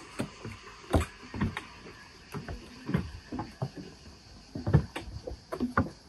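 Footsteps of several people walking down a long flight of steps: irregular thuds and scuffs, two or three a second.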